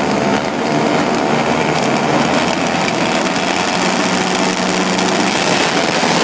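Several ice-racing quad (ATV) engines running together at high revs, with many engine notes overlapping.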